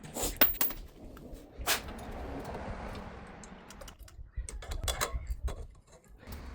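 Scattered clicks, taps and light knocks of hand tools and small metal parts being handled, with a soft rustling, scraping stretch around the middle.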